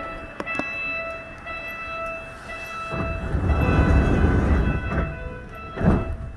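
Subway car standing at a platform, heard from inside: a repeating electronic chime tone, with a low rumble building from about three seconds in and a sharp thud near the end.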